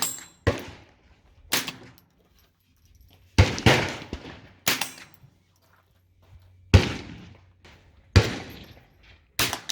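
.22 LR rifle shots at a range, about nine sharp cracks fired at uneven intervals, each followed by a short fading echo.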